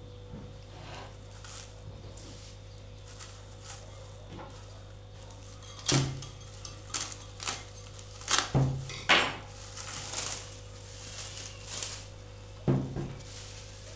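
Knife clicking and knocking against a glass bowl while cutting through the plastic cling film stretched over it: a run of sharp clicks from about six seconds in. Softer crinkling follows as the film is pulled off, then one more knock of the bowl, over a steady low electrical hum.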